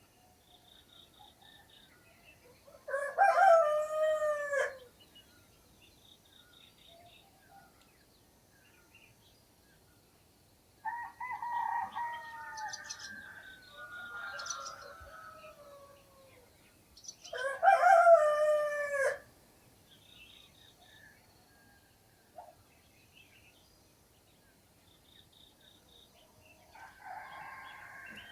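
Roosters crowing: two loud crows about three seconds and seventeen seconds in, each falling in pitch at the end, and a longer, fainter crow around eleven seconds. Small birds give short high chirps in between.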